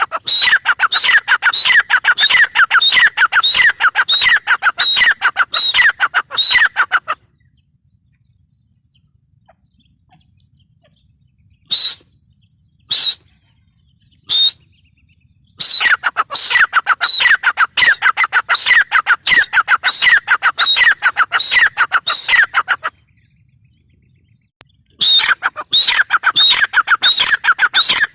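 Grey francolin calling: loud, sharp notes repeated rapidly, about four or five a second, in three long bouts. Between the first and second bouts come three single notes.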